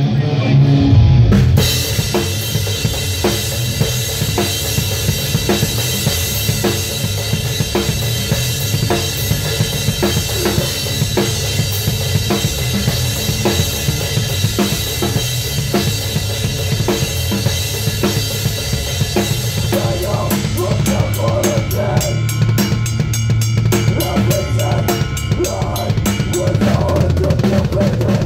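A Mapex drum kit played hard and fast in a live metal song, heard close up from the kit: kick drum, snare and cymbals, with the rest of the band underneath. A crash about a second in opens a cymbal-heavy stretch, and near the end the drumming turns to fast, even strokes.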